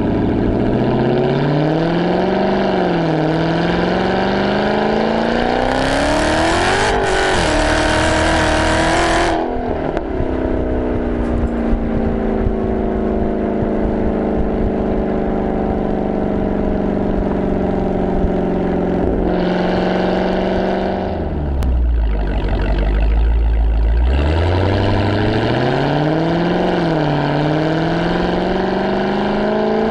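Dodge Charger Hellcat's supercharged 6.2-litre Hemi V8 through a Corsa Xtreme exhaust, heard right at the tailpipe. It accelerates with an upshift about three seconds in and pulls hard to about nine seconds. Then it lifts off and coasts down on engine braking with a few exhaust pops, falls to a low rumble around twenty-one seconds, and accelerates again with another upshift near the end.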